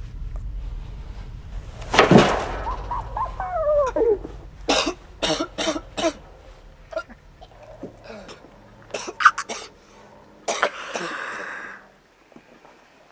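A person's vocal distress sounds: a groan sliding down in pitch about two seconds in, then a series of short, harsh coughs.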